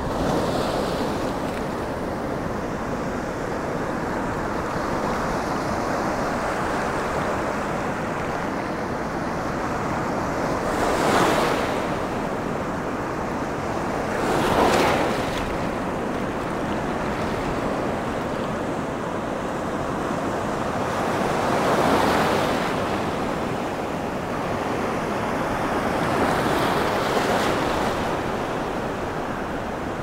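Sea surf on a sandy shore: small waves breaking and washing up over the shallows in a steady rush of foaming water, swelling louder four times as larger waves break.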